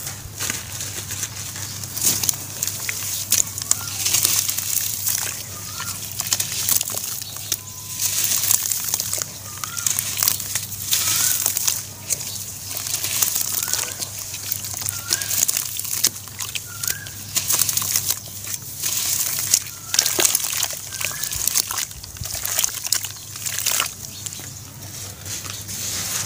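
Hands squeezing and stirring wet charcoal ash slurry in a plastic basin: squelching, sloshing and fizzing of the wet ash in repeated surges, with small crackles.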